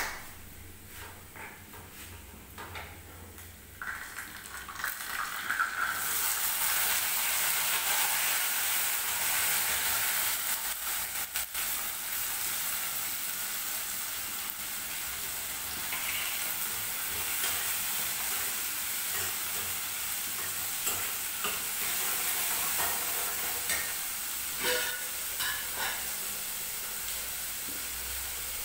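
Chopped onion sizzling in hot oil in a steel pan, a tadka (tempering) for moong dal, starting about four seconds in and carrying on as a steady sizzle. A steel ladle scrapes and clicks against the pan now and then as it is stirred.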